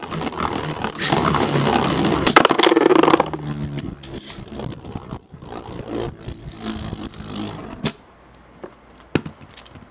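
Two plastic Beyblade spinning tops, Dragoon G and Apollon, one right-spin and one left-spin, clashing and grinding against each other in a plastic stadium. The scraping is loud for about the first three seconds, then goes on quieter with scattered clicks as the tops slow. It dies down near the end, leaving a few clicks.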